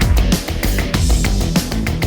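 Fast, heavy rock music with distorted guitar and a driving drum beat.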